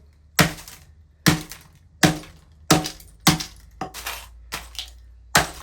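A computer being smashed apart with a run of hard, sharp blows, about nine strikes, roughly one every two-thirds of a second, with cracking and clinking of breaking parts.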